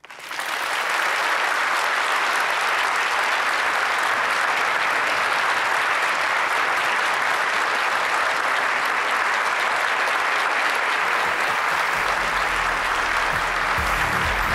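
Audience applauding, starting suddenly and holding steady. Music comes in underneath near the end.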